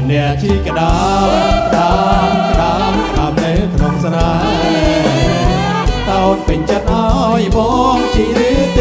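A Khmer romvong dance song played by a live band, with male and female singers singing together over a steady bass beat.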